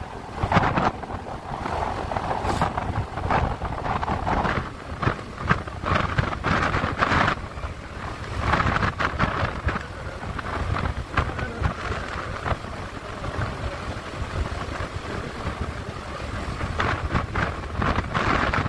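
Wind buffeting the microphone over the steady rumble of a vehicle travelling along a road, with gusty surges throughout.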